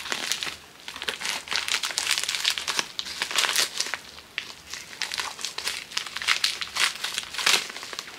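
A parcel's packaging crinkling and rustling as it is opened and unwrapped by hand, in quick, irregular handling noises with no steady rhythm.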